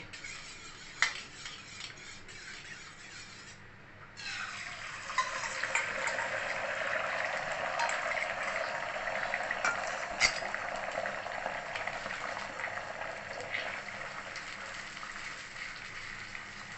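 Beaten eggs sizzling in hot oil in a nonstick kadai. The sizzle starts suddenly about four seconds in and eases off toward the end. A few knocks and scrapes of a spatula can be heard as the egg is stirred and scrambled.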